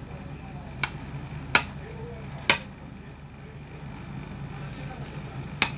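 Metal cutlery tapping on the crisp baked puff pastry lid of a soup bowl: four sharp clicks, three close together in the first half and one more near the end.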